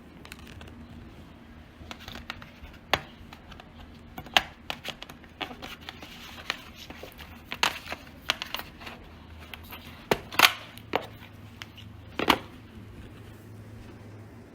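Packaging being handled and opened: irregular sharp clicks and taps with some crinkling of plastic or paper, the loudest snaps about four seconds in, near ten seconds and near twelve seconds.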